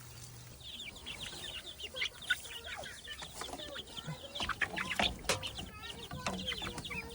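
A flock of young layer chicks peeping, many short high chirps overlapping, starting about half a second in. A few sharp knocks sound among them around the middle.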